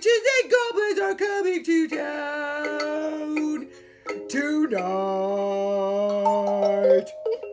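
A man's voice howling and wailing in a sung Halloween chant. It slides up and down in short glides for about two seconds, then holds long steady notes that stop abruptly about seven seconds in.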